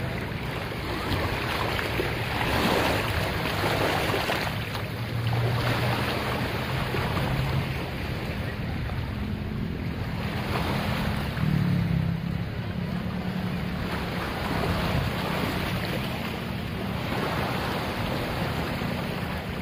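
Small waves washing in over sand and rocks at the water's edge, surging every few seconds, with wind on the microphone and a low hum underneath.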